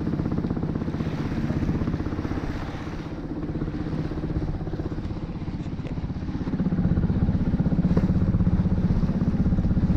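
A small sailboat's motor running steadily under way, with a fast even pulse; it gets louder about six and a half seconds in.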